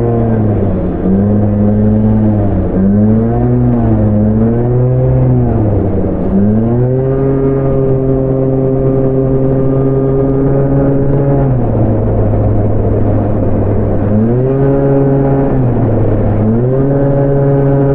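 Honda Gyro scooter engine running, its revs dipping and climbing several times with the throttle, then holding steady and rising again twice.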